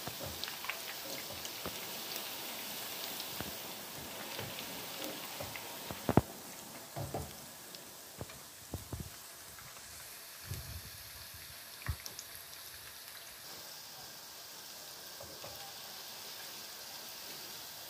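Beef-and-pork meatballs deep-frying in hot oil as they start to brown: a steady sizzling hiss with scattered sharp clicks, the loudest about six seconds in.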